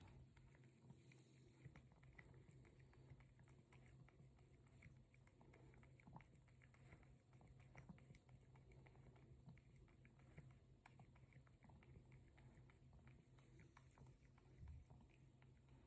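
Faint, quick soft clicks of a cat lapping water, over a steady low hum.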